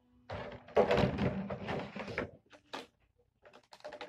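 Packaging rustling and bumping as it is handled and searched through by hand, in a dense stretch of noisy rustles for about two seconds, then a few short scattered ones.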